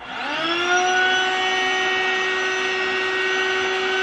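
Electric air pump of a Contour Power Bed (Mattress Genie) inflatable bed wedge switching on, its whine rising in pitch for about half a second and then running at a steady, loud hum as it inflates the wedge under the mattress.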